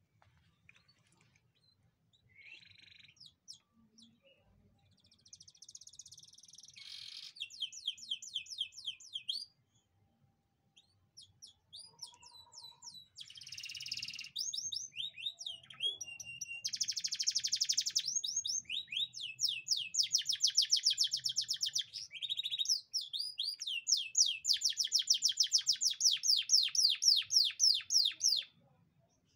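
Domestic canary singing: long phrases of fast rolling trills and repeated high notes, broken by a short pause about a third of the way through.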